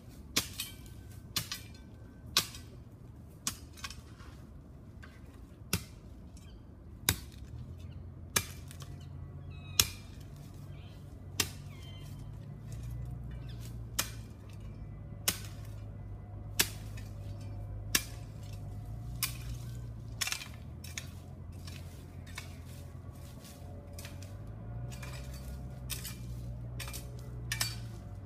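A metal hand tool striking into stony ground while digging, a sharp clink roughly every second and a half, over a steady low engine hum.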